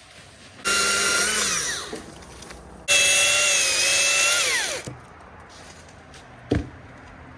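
Chainsaw run at full throttle in two bursts, about a second and about two seconds long, each winding down in pitch when the throttle is let off. A single thump about six and a half seconds in.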